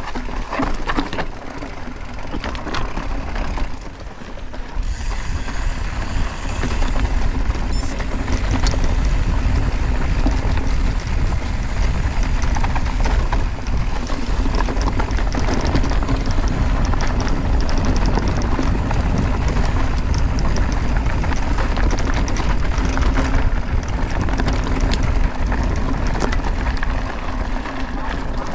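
Mountain bike riding over a gravel and dirt trail: tyres crunching and rolling over loose stones, with a steady deep rumble underneath that grows louder about five seconds in.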